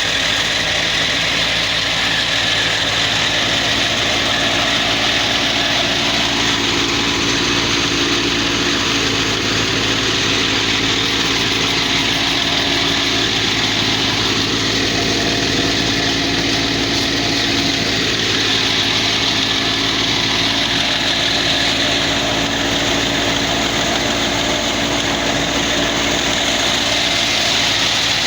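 Wheat threshing machine running steadily: a loud, even mechanical din, with a strong hiss over a low hum.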